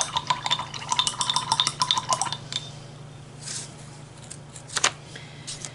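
Paintbrush being rinsed in a water jar, clinking rapidly against the jar's sides with a light ringing for about two and a half seconds, then a few separate knocks.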